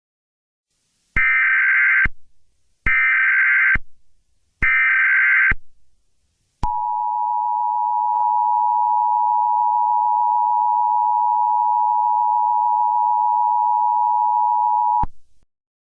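Emergency Alert System header: three short bursts of screeching data tones (the SAME digital header), then the EAS attention signal, a steady two-tone sound lasting about eight seconds that cuts off abruptly. Together they mark the start of a new emergency alert.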